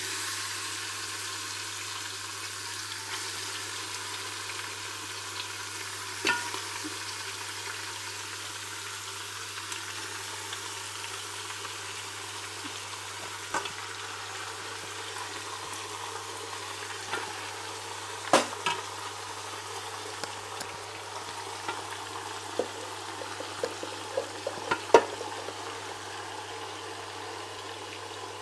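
Marinated mutton sizzling in hot mustard oil in an aluminium pressure cooker as it is added by hand, a steady frying hiss. A few sharp knocks break in, the loudest about 18 and 25 seconds in.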